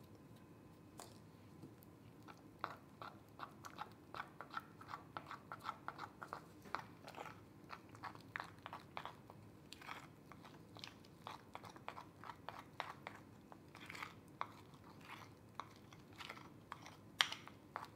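A spoon stirring thick icing in a small glass bowl, mixing in blue food colouring: faint, irregular clicks and scrapes of the spoon against the glass, two or three a second, the sharpest one near the end.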